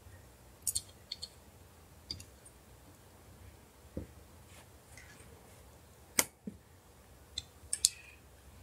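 Scattered small clicks and taps of LG V20 phone parts being handled and pressed into place by hand, as the camera module is fitted onto the motherboard. The loudest click comes a little after six seconds in, with a quick cluster near the end.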